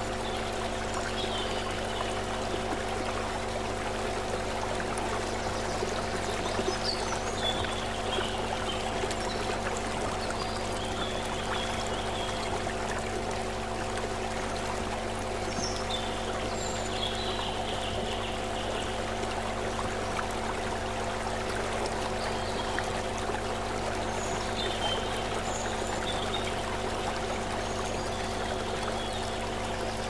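Shallow stream running over rocks: a steady rush of flowing water, with a steady hum of several held tones underneath.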